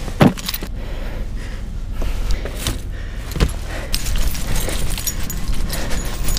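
Car keys and the metal clips of a fish stringer jingling and clinking in hand while walking, with a couple of dull thumps, the first just after the start.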